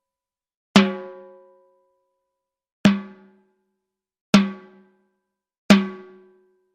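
Timbales struck one hit at a time: four separate strikes at uneven intervals, each giving a sharp crack with a ringing drum tone that dies away within about a second.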